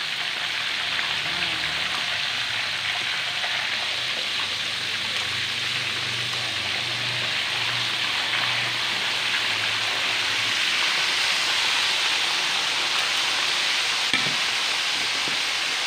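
Whole chicken deep-frying in a wok of hot oil: a steady, dense sizzle of bubbling oil, the oil having a little wheat flour stirred in to keep it from spattering. A single short knock of a utensil against the wok comes near the end.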